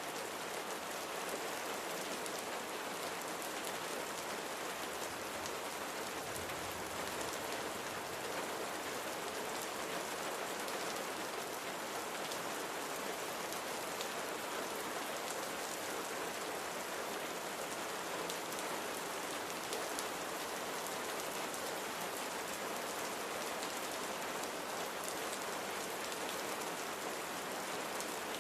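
Steady rain falling, an even hiss with fine scattered drop patter.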